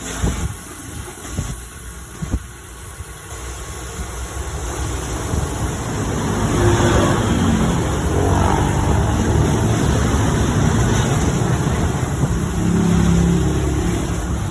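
Suzuki S-Presso's small three-cylinder engine running and pulling away. A few knocks come in the first seconds, then the engine grows louder from about four seconds in, with its note rising as it accelerates.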